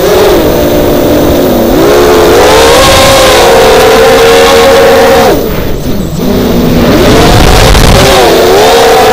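FPV quadcopter's four Lumenier 2206 2000 kV brushless motors spinning 5-inch HQProp Bullnose props on a 4S battery: a loud, many-toned whine that rises and falls with the throttle. About five seconds in the throttle is chopped and the whine drops sharply and quietens, then climbs back up.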